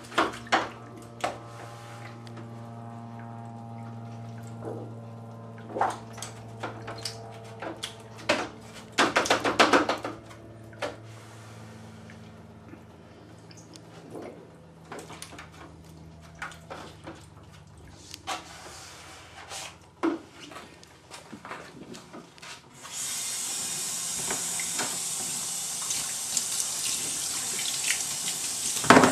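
Water splashing and dripping in a plastic developing tray as a wet pigment tissue is lifted and handled, with scattered knocks against the tray over a steady low hum. About two-thirds of the way through, a steady hiss of spraying water starts and keeps on.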